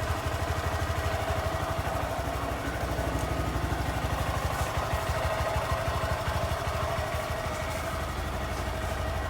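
Honda Grom's 125 cc single-cylinder engine idling steadily with an even, rapid low pulse.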